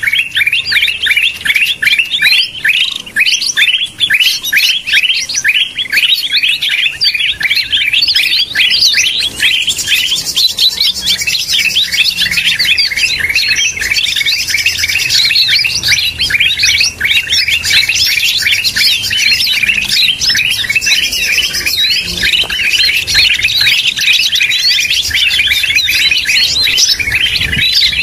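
Green leafbird (cucak hijau) lure calls: a dense, agitated chatter of rapid chirps repeating many times a second, joined from about a third of the way in by a higher layer of notes above it.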